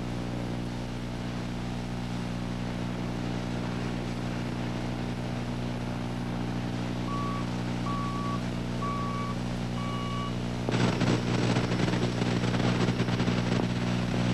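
Diesel engine of a wheel loader running steadily. Its backup alarm beeps four times in the middle. Near the end the sound turns suddenly louder and rougher as the machine works.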